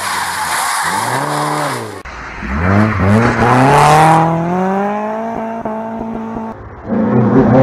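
Rally cars at full throttle on a tarmac stage: an Opel saloon's engine note rising and falling as it comes through a corner, then a BMW 3 Series (E30) accelerating hard away, its engine pitch climbing and then holding high. Near the end another car's engine comes in loud.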